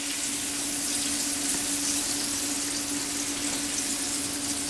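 Battered chicken deep-frying in hot oil in a wok: a steady sizzling hiss, with a constant low hum underneath.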